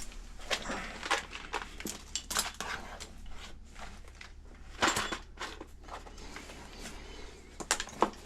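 Irregular clinks and knocks of small hard objects being handled, with the loudest knock about five seconds in, over a low steady hum.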